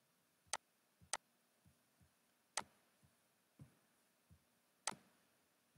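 Computer mouse clicking: four sharp clicks a second or two apart, with fainter soft knocks between them, against near silence.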